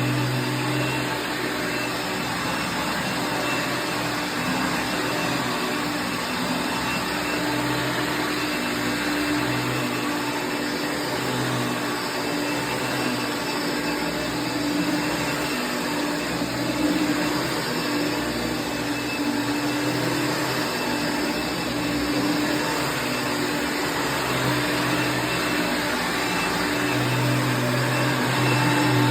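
Mid-1990s Dirt Devil Plus soft-bag upright vacuum cleaner running steadily, its motor making a loud, even whine.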